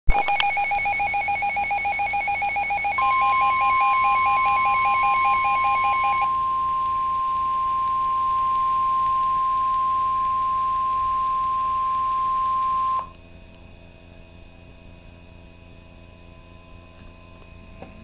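A Midland weather radio sounds a NOAA Weather Radio emergency alert. For about six seconds it gives rapid pulsing tones at two pitches. From about three seconds in, the steady 1050 Hz warning alarm tone overlaps them, holds about ten seconds and cuts off suddenly, leaving only a low hum.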